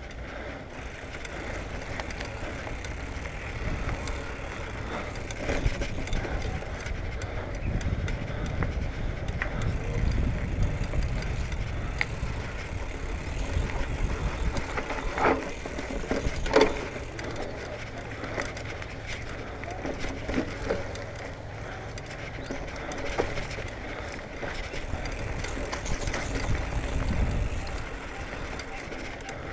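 A 2019 Marin Bobcat Trail 5 hardtail mountain bike ridden down a dirt singletrack: a low rumble of tyres on the trail that swells and fades, with scattered rattles and clicks from the bike and two sharp knocks a little past halfway as it goes over bumps.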